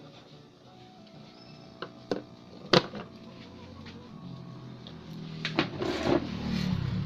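Faint music and programme sound from the CRT television, with a few sharp clicks and knocks, the loudest about three seconds in, and a louder rustling stretch near the end.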